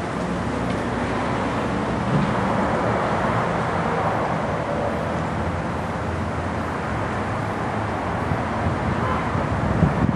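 A steady, even rumble of distant vehicle noise with no clear pitch. A couple of brief knocks come near the end.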